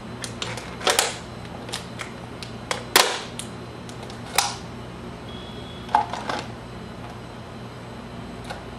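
Plastic water bottles being handled and stacked: irregular crinkles and clicks of thin plastic, loudest about one and three seconds in, over a steady low hum.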